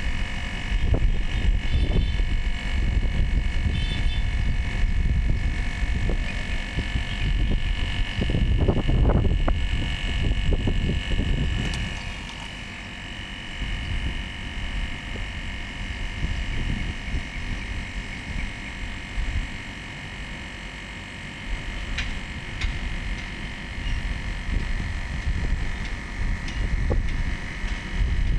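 Outdoor unit of a 2 PK R22 split air conditioner running, its compressor and condenser fan giving a steady hum with a high whine over a low rumble that is heavier in the first dozen seconds. The compressor is drawing more than its rated current, which the technician puts down to either a weak compressor or a clogged system.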